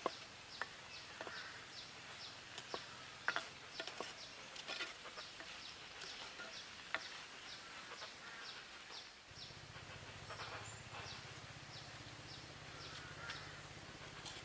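Faint outdoor rural ambience: short high chirps repeating about four times a second, with a few sharp clicks in the first half. A low hum comes in about nine seconds in.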